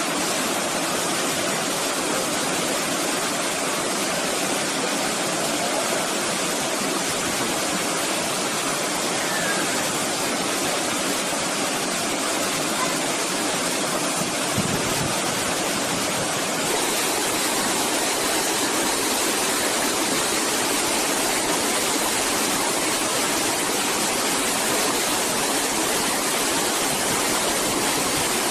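Small waterfall pouring over rock into a pool, a steady rush of water that gets a little louder about two-thirds of the way through.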